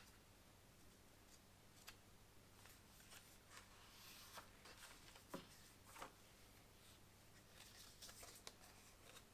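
Near silence with faint, scattered rustling and light clicks of paper and packaging being handled, a little louder around the middle.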